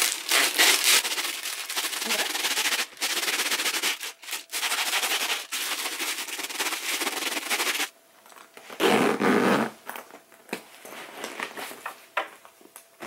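Wax paper rubbed and crinkled back and forth along a metal bag zipper to smooth it, a dense scratchy rustle for about eight seconds that stops abruptly. A short thump of the bag being handled follows about a second later, then faint rustling.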